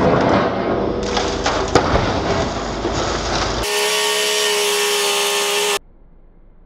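Scrap-handler grapple crushing a car's body: steady machine noise with crunching and cracking of metal and glass, the sharpest crack just under two seconds in. Just before four seconds in the sound changes abruptly to a steady squeal of several held tones for about two seconds, then drops suddenly to a much quieter background.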